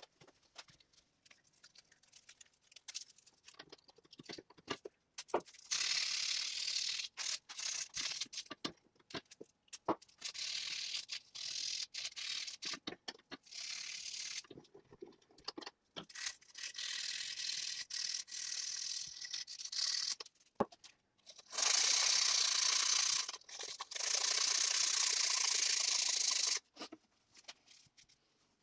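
220-grit sandpaper wet-sanding the steel jaw of an antique monkey wrench by hand: short runs of quick rasping strokes broken by pauses, then two longer, louder stretches of steady rubbing in the last third.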